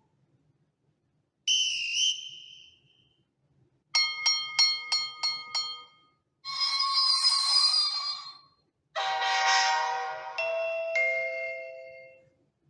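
A series of train sound effects from the LEGO Powered Up app: a short warbling whistle, then a quick run of about six bell-like dings, then a hissing sound with a tone in it, then a chord-like horn or chime that fades away.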